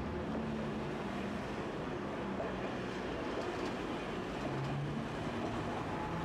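Tosaden streetcar running past on street-running track, a steady rolling noise with a faint low hum.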